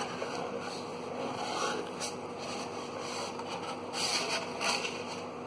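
Cardboard poster tube being opened by hand: rustling and scraping of cardboard, tape and rolled paper, with a few louder rustles about four seconds in.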